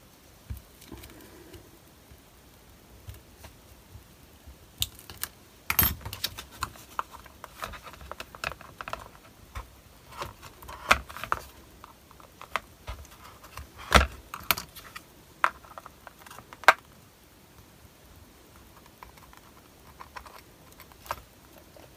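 Handling of craft materials: irregular small clicks, taps and light rustling as a metal nameplate frame and split pins are worked against a cardboard journal cover on a cutting mat, with a few sharper knocks about six and fourteen seconds in.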